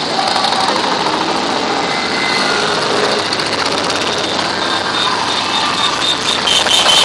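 A column of motorcycles, mostly cruisers, riding past one after another at parade pace, their engines running steadily.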